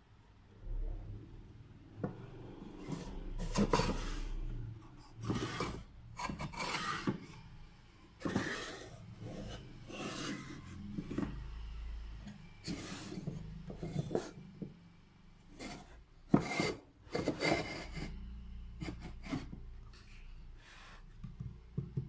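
Plywood drawers of an IKEA Moppe mini chest of drawers being slid in and out of their frame: a string of short, irregular scraping rubs of wood on wood, with a few sharp knocks.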